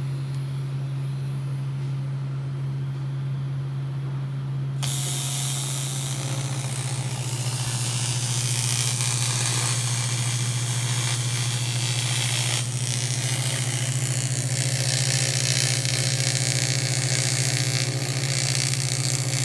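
TIG welding arc on a metal tube: a steady low hum, then about five seconds in the arc strikes and a loud, even hiss runs on while the bead is laid. It dips briefly about twelve and a half seconds in, then carries on.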